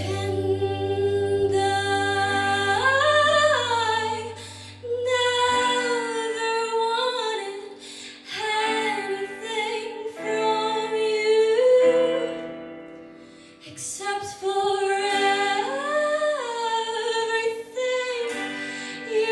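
Music: a woman singing a melody in phrases over held chords. A low bass note drops out about five and a half seconds in.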